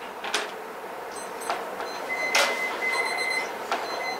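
Phone timers beeping in repeated short high electronic tones, starting about a second in, marking the end of a timed debate speech, with a few sharp taps in between.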